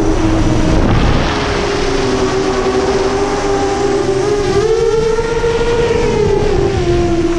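The motors and props of a 7-inch FPV quadcopter buzzing in flight: Brother Hobby 2507 1500KV motors spinning 7040 tri-blade props, heard from the onboard camera with wind rushing past. The pitch rises about four and a half seconds in and falls again near the end as the throttle changes.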